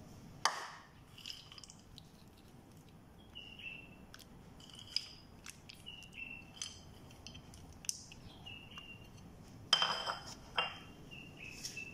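Fried cashew nuts scattered by hand over a platter of rice and meat, giving light clicks and a short clatter about ten seconds in. Small birds chirp faintly now and then.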